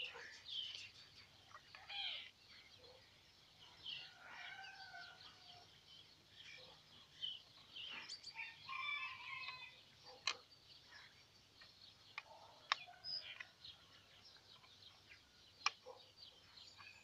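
Faint chickens clucking and small birds chirping, with a few sharp clicks.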